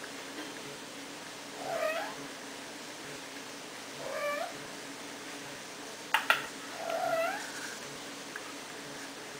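Domestic cat meowing three times, short meows a couple of seconds apart. Two sharp clicks come just before the third meow.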